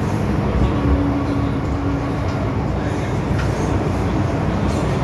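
MTR M-Train electric multiple unit running in the tunnel, heard from inside the car as a loud, steady rumble of wheels and running gear. A steady hum comes in about a second in and lasts nearly two seconds.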